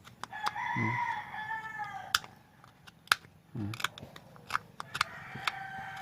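A rooster crowing: one long crow about half a second in and another starting near the end, over scattered sharp clicks.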